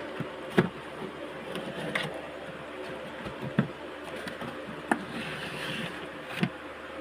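A steady buzzing hum with sharp knocks every second and a half or so, five in all.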